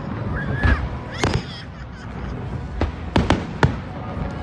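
Aerial firework shells bursting: a run of sharp bangs, a cluster about a second in and another about three seconds in, over a low rolling rumble.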